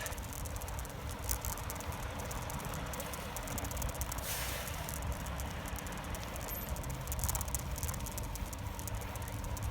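Travel noise from a moving camera: a steady low wind rumble on the microphone with light rattling clicks throughout, and a brief rush of noise about four seconds in.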